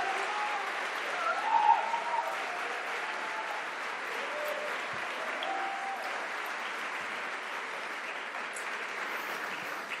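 Audience applauding steadily, with a few voices calling out over the clapping in the first seconds.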